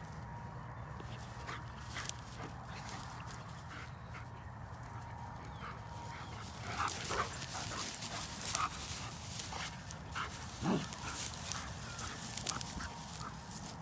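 German Shepherds at play: from about halfway in, short yips and whines come in quick separate bits, among scattered rustles.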